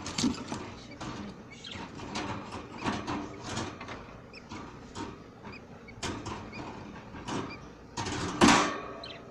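Pet budgerigars chirping and chattering in short squeaky bursts, with a loud knock or clatter about eight and a half seconds in.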